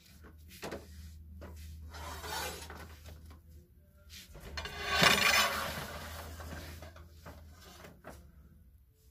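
Clothes and hangers being handled on a display rack: scattered clicks and knocks, and rubbing, scraping swells, the loudest about five seconds in, over a steady low hum.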